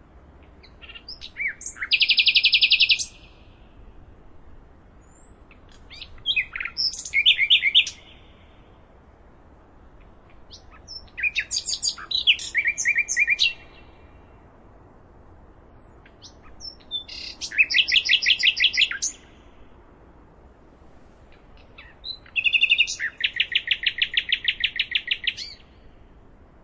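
A songbird singing five song phrases, spaced about five seconds apart. Each phrase opens with a few quick notes and ends in a fast, even trill lasting a second or two.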